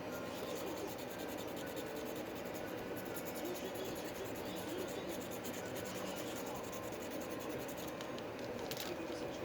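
Light, rapid scratching over a steady low hum.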